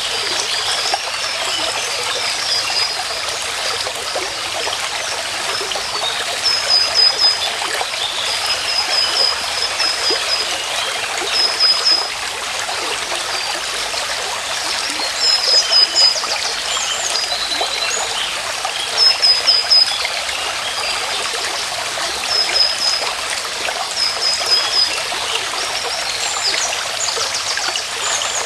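Small stream running steadily over stones, with a bird's quick, high chirps in short runs every few seconds.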